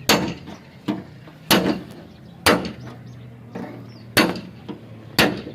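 Hammer blows on car body sheet metal during dent repair: five hard strikes, irregularly about a second apart, with a few lighter taps between them.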